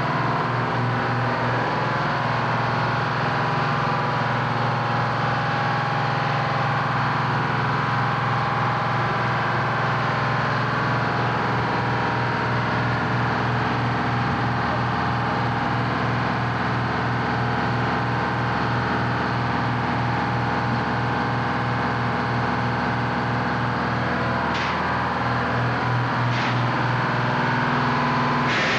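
Machinery running steadily in a fireboat's engine room: an even, loud hum with a regular low throb. Two sharp clicks come near the end.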